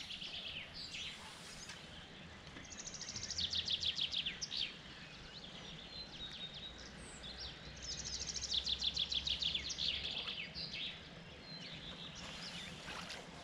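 A songbird singing twice: each phrase is a fast run of high, repeated notes lasting about two seconds, the first a couple of seconds in and the second about eight seconds in, over a faint low background rumble.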